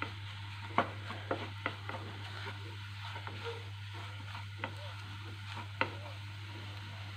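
Wooden spatula stirring and scraping bread halwa around a nonstick frying pan as it roasts in ghee, with faint sizzling and a few light knocks of the spatula against the pan. A steady low hum runs underneath.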